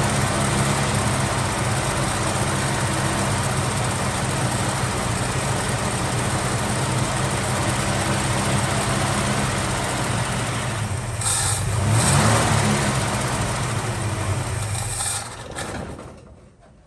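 Valiant Charger engine running steadily at idle, with a brief rise in revs about twelve seconds in, then winding down and stopping near the end.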